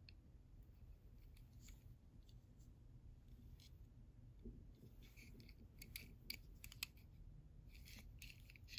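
Faint clicks and light scraping of fingers handling a small Matchbox die-cast 1963 Cadillac ambulance as it is turned over, over a low room hum. The sharp little ticks cluster in the second half.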